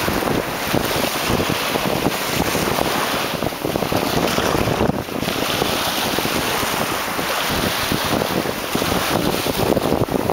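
Wind buffeting the microphone in steady gusts over small sea waves washing onto the beach.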